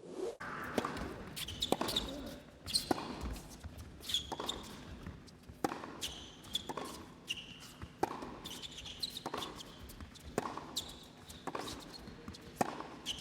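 A tennis rally on an indoor hard court: sharp racket strikes and ball bounces about every half second to second, with short shoe squeaks on the court surface between them.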